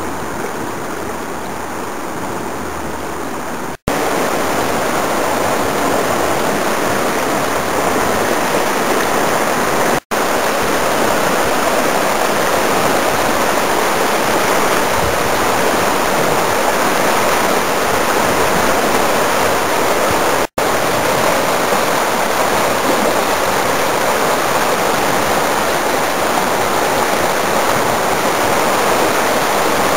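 Whitewater of a small creek rapid rushing over rocks, a steady hiss of water. It is softer for the first few seconds and louder after a break about four seconds in, with three short dropouts to silence where the recording cuts.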